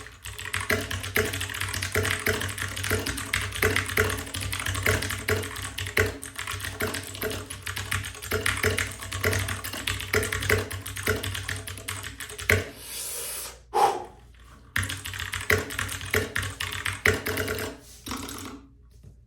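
Typing on a Royal Kludge 60% mechanical keyboard with clicky blue switches: rapid keystrokes, breaking off briefly about two-thirds of the way through, over a low steady hum.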